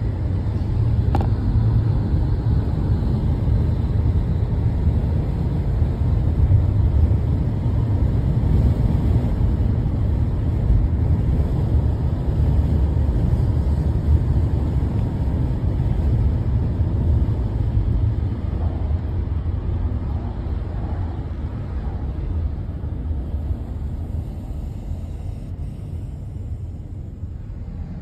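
Steady low rumble of road and engine noise inside a moving car's cabin, growing gradually quieter over the last several seconds.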